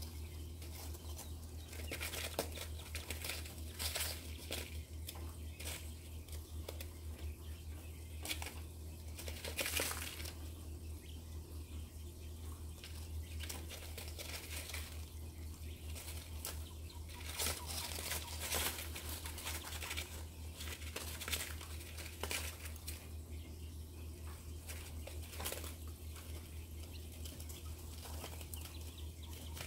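White button quails scratching and pecking in loose grain bedding over newspaper: scattered rustling, crinkling and light ticks at irregular moments, over a steady low hum.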